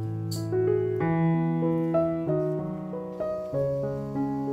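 Background piano music: a gentle melody played note by note over held bass notes.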